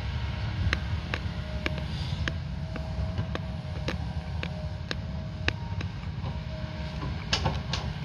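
Kobelco 220 excavator's diesel engine running with a steady low rumble and a faint whine that comes and goes, while the machine dumps soil and swings. Sharp knocks and clatters of dirt and stones come every second or so, with a quick cluster near the end.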